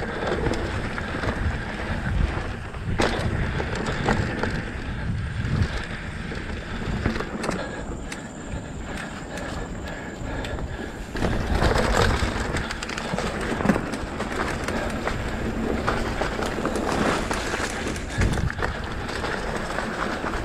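Mountain bike rolling fast down a dirt trail: tyres rumbling and crunching over dirt, with the bike rattling and knocking over bumps throughout.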